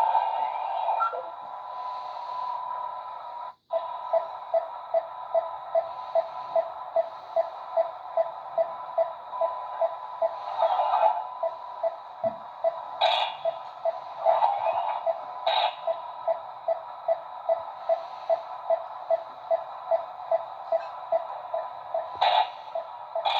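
Electronic sound effects from a ghost trap prop's small built-in speaker: a steady electronic hum with a beep pulsing about twice a second. The sound cuts out briefly near four seconds in, and a few short hissy bursts come over the top.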